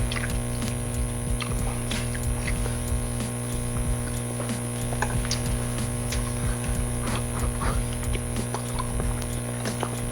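Close-miked chewing and mouth sounds of someone eating hamburger steak with gravy: many small, irregular wet clicks. A steady electrical hum runs underneath.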